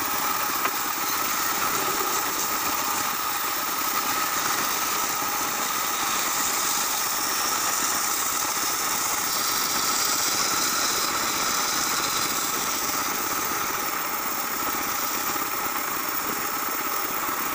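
Band saw running steadily, its blade cutting curved chair-leg blanks out of wood: a constant machine whine with the hiss of the cut.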